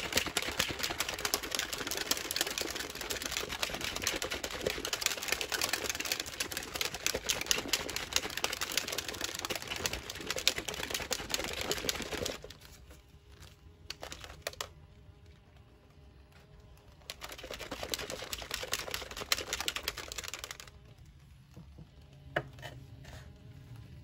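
Plastic shaker bottle being shaken hard, its contents rattling rapidly for about twelve seconds, then a second, shorter shake a few seconds later; it is mixing the MRE's chocolate protein drink powder.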